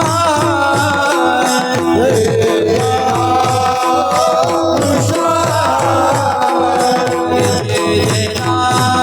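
Devotional kirtan music: a singing voice over held accompanying notes, with a mridang drum keeping a steady beat.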